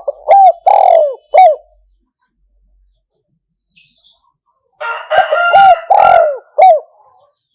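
Spotted dove cooing: two phrases about four seconds apart, each a run of short notes that fall in pitch, the second phrase with a rougher start.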